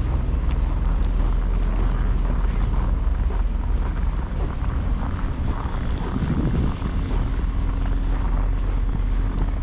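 City street ambience in a snowstorm: a steady low rumble of traffic mixed with wind buffeting the microphone.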